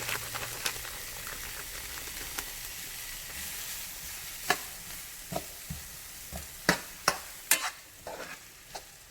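Food frying in a pan with a steady sizzle that fades away, then a utensil knocking and scraping against the pan several times from about halfway through.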